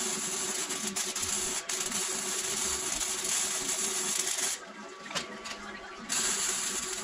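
Electric arc welding on a steel door frame: the arc's dense crackling hiss runs, stops about four and a half seconds in, and strikes up again about a second and a half later, over a steady hum.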